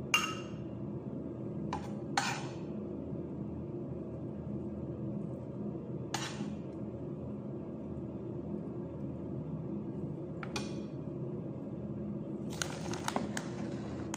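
Metal spoon clinking against a glass baking dish a few times, seconds apart, with a quick run of clinks near the end, over a steady low hum.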